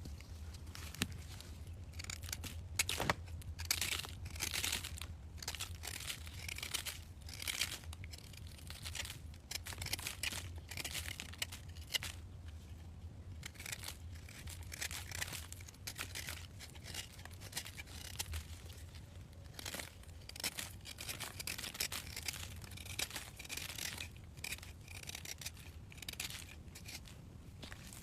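Crisp tearing and crinkling sounds in a quick, irregular series of close strokes, as of a dry material being torn or crumpled by hand, over a steady low hum.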